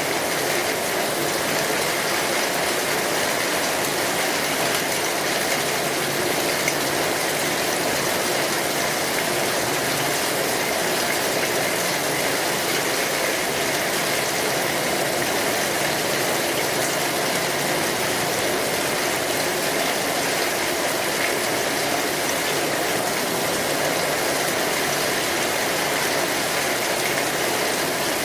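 Steady rain falling on an umbrella: a dense, even hiss of drops with no letup.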